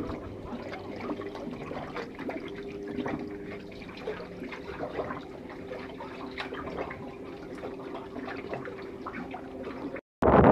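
Water lapping and dripping, with many small splashes and trickles over a steady low hum; it cuts off abruptly near the end.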